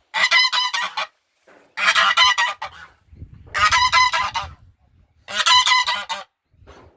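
Domestic goose honking loudly in four bursts of rapid calls, each about a second long, coming roughly every second and a half to two seconds.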